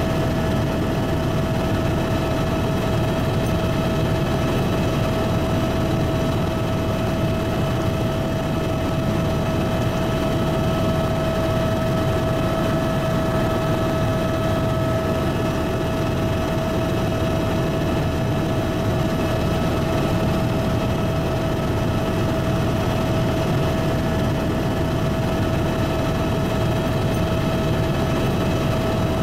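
Helicopter in flight, heard from on board: steady engine and rotor noise with a constant whine over it.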